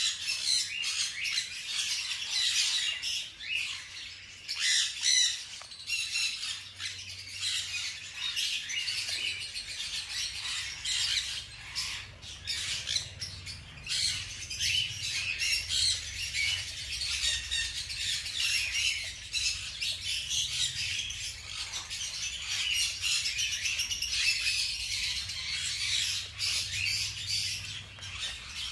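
Continuous high-pitched squeaking and chirping from a litter of newborn hamster pups, irregular and overlapping. It is mixed with light crackling rustles of dry sunflower-seed husks as the mother hamster moves through the bedding.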